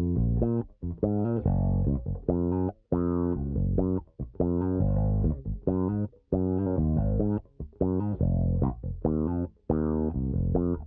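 Background music with a plucked bass line, played in short choppy phrases with brief breaks between them.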